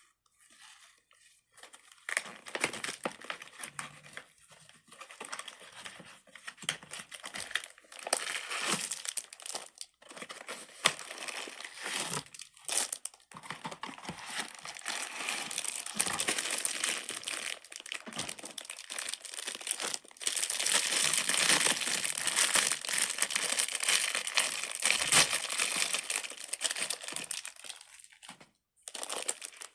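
Crinkly packaging of Sanrio character stress balls being handled and torn open, an irregular crackling that gets denser and louder after about twenty seconds.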